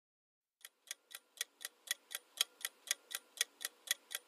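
Countdown-timer ticking sound effect, like a clock, with evenly spaced ticks about four a second starting about two-thirds of a second in and growing slightly louder.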